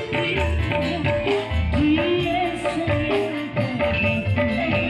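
Live amplified music through a PA: a woman singing into a microphone over an electronic keyboard (electone) with drum and tabla-like percussion parts.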